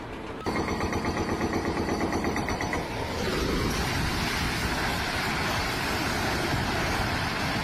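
Machinery running loudly, starting abruptly about half a second in. It has a fast pulsing clatter at first, then turns steadier and noisier about three seconds in, and cuts off suddenly at the end.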